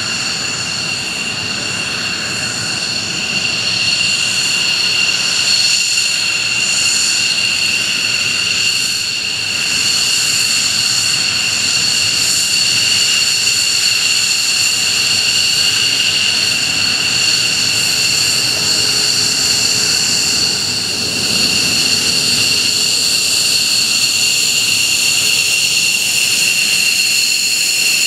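F-15J Eagle taxiing on its twin F100 turbofans at low thrust: a steady high-pitched whine over a continuous jet rush, growing louder about four seconds in as the jet comes nearer.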